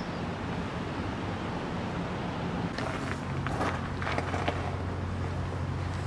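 A steady low hum of outdoor background noise, with a few light clicks and crunches about halfway through.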